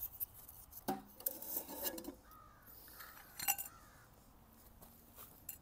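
Short scraping strokes of a knife blade shaving a stick of wood, in a few quick bursts, with a crow cawing in the background.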